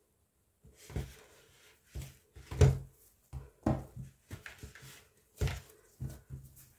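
Hands shaping soft yeast dough into balls on a floured wooden tabletop: irregular thumps of the dough and hands against the wood, with rubbing between them. The loudest knock comes a little under three seconds in.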